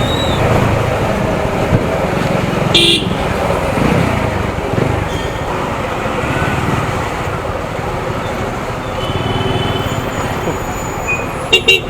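TVS Apache RTR 200 single-cylinder motorcycle running through city traffic, with engine and road noise throughout. A vehicle horn blasts briefly about three seconds in, and several short horn honks come near the end.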